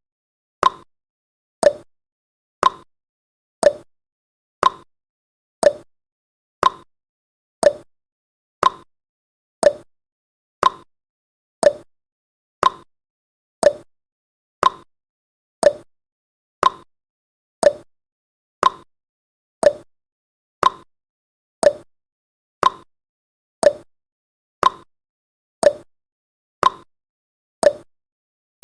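Countdown timer's clock-tick sound effect: a short, sharp tick once a second, with silence between the ticks.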